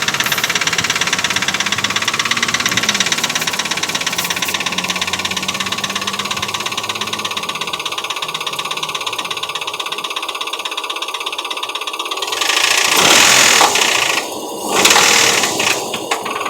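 2004 Nissan Pathfinder's V6 engine running with a fast, steady knocking, a bad knock whose cause the owner does not yet know. About twelve seconds in, a loud rushing noise covers it for a few seconds.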